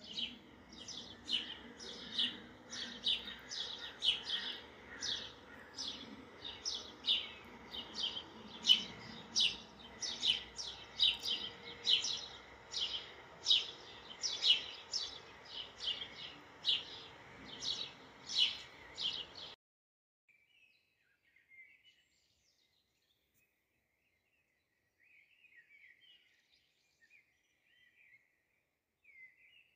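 A bird chirping, short high chirps about twice a second, which stop abruptly about twenty seconds in; after that, near silence.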